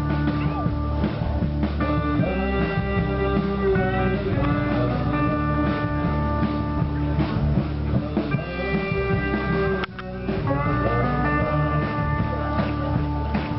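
Guitar-led rock music with long held notes, dropping out for a moment about ten seconds in.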